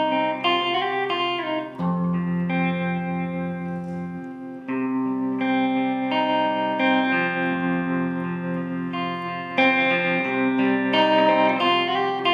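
Solo electric guitar, a Les Paul-style solidbody, played without voice. Picked notes ring into sustained chords that change every two to three seconds.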